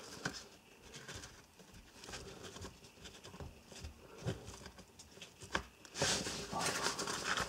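Small scratches, clicks and rustles of a nylon Maxpedition Micro pouch being handled as fingers pick and pull cut stitching thread out of its seam. The rustling grows denser and louder in the last second and a half.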